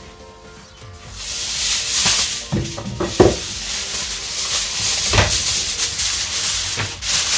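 Sheet of aluminium foil crinkling and rustling as it is handled and spread over a pan, with a few sharper crackles. It starts about a second in.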